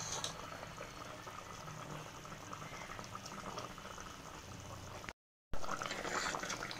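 Mutton trotter curry bubbling at a simmer in an open pressure cooker, a steady soft crackle. It cuts out briefly about five seconds in, then comes back louder as a steel ladle moves through the gravy.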